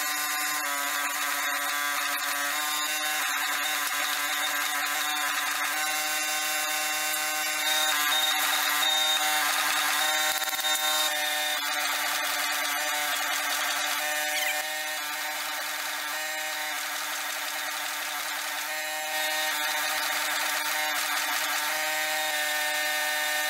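Forging press running steadily, its motor and hydraulic pump giving a constant mechanical whine over a rushing noise as it presses a hot steel billet. The sound grows louder for a few seconds about eight seconds in, drops back slightly around fourteen seconds, and picks up again around nineteen seconds.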